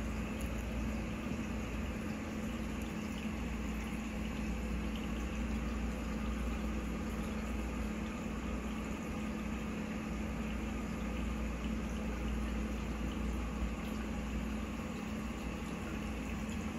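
Steady hum of a reef aquarium's pumps with the water circulating and bubbling in the tank.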